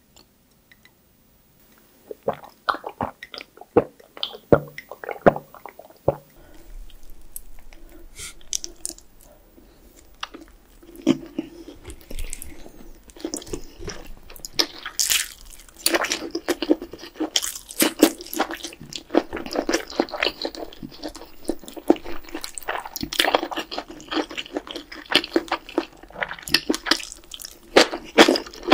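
Close-miked eating sounds: after a brief silence, scattered clicks of chopsticks and dishes, then wet chewing and smacking of mouthfuls of food, including a cheese tteokgalbi (grilled beef patty).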